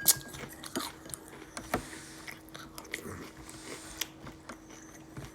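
A person chewing and crunching a mouthful of Cinnamon Toast Crunch cereal close to the microphone, with irregular crisp clicks and crackles.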